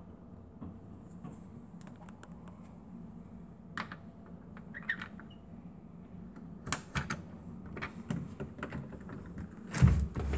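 Irregular knocking from an unidentified source: scattered sharp taps and knocks, a few seconds apart at first and then closer together, with the loudest, heavier knock near the end.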